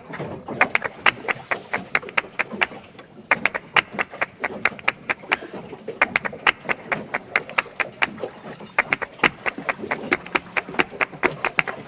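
Fishing reel clicking steadily as line is wound in, about five or six clicks a second, in runs of a few seconds with short pauses between them.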